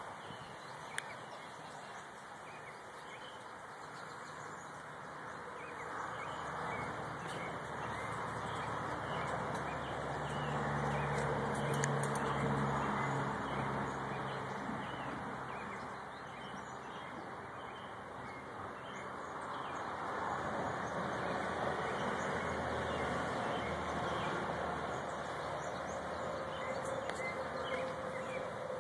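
Outdoor ambience: a steady rushing noise that swells about a third of the way in and again in the last third, with faint bird calls.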